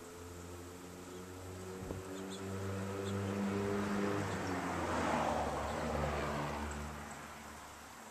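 A motor vehicle passing by: a low engine hum and broad rushing noise swell to a peak about five seconds in and then fade, the pitch dropping slightly as it goes past.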